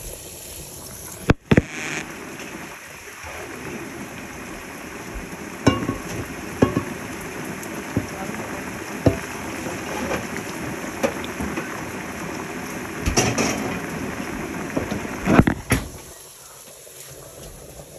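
Sliced onions frying in oil in a pan, a steady sizzle, with a dozen sharp knocks and clicks over it, the loudest about a second and a half in. The sizzle fades out about two seconds before the end.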